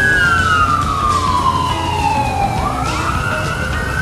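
Emergency vehicle siren wailing. Its tone falls slowly for about two and a half seconds, then sweeps quickly back up and holds high, over a low rumble of street noise.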